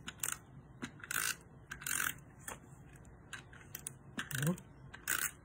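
Tape runner being drawn across the back of a cardstock piece to lay adhesive: several short rasping strokes with small clicks between them.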